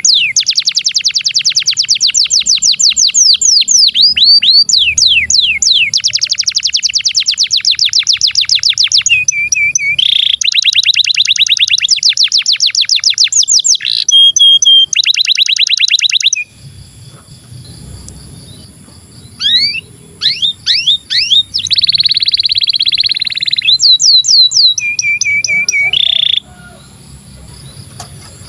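Male domestic canary singing long rolling song: very fast trills of repeated high sweeping notes, tour after tour, almost unbroken for about the first sixteen seconds. The song then breaks into shorter phrases with gaps between them.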